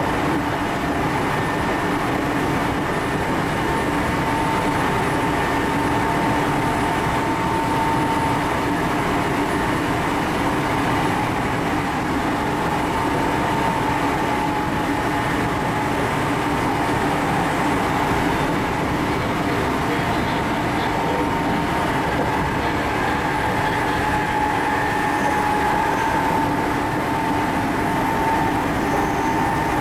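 Running sound heard inside an Odakyu 8000 series field-chopper electric motor car (Deha 8205) travelling at speed: a steady rumble of wheels on rail and the traction gear. A faint high tone fades in and out over it.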